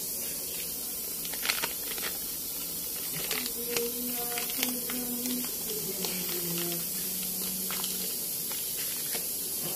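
Plastic packaging crinkling in short, sharp rustles, several times, as a new rubber stabilizer bushing is unwrapped by hand, over a steady hiss.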